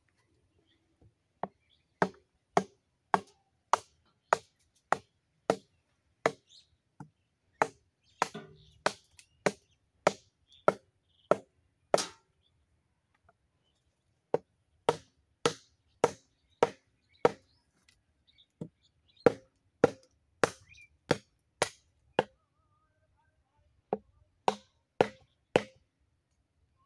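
Sharp, evenly paced knocks, a little under two a second, in three runs with short pauses between, about thirty-five in all, like blows struck in fitting a small diesel engine water pump to its base.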